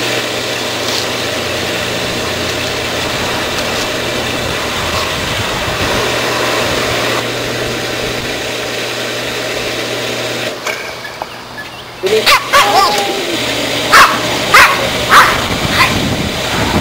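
Steady rushing and low hum of a pool's backwash water pouring out through a hose, which cuts off about two thirds of the way through. Near the end an American Eskimo dog yips and then barks about four times in quick succession.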